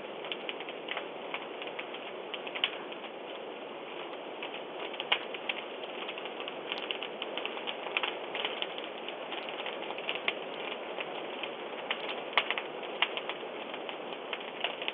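A house fire crackling, with irregular sharp pops over a steady rushing noise, heard through a doorbell camera's thin microphone.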